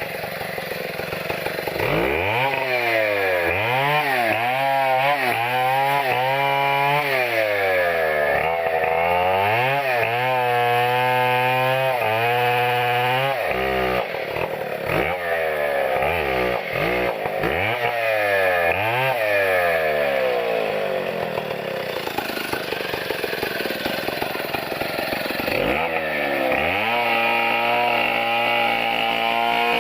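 Two-stroke chainsaw revving up and down again and again as the throttle is worked, its pitch climbing and falling several times, with rougher stretches in the middle where it runs under load.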